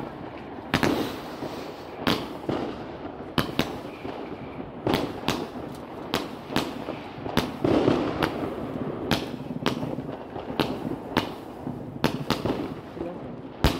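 A large consumer firework battery (cake) firing shot after shot, a sharp bang roughly every second at irregular spacing, with a rushing hiss of burning charges between the reports.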